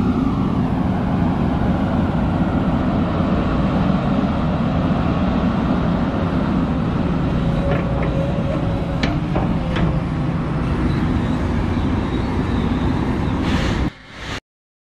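Hidromek 310 crawler excavator's diesel engine running steadily as it digs, with a few faint ticks and a brief faint whine in the middle; it cuts off suddenly about a second before the end.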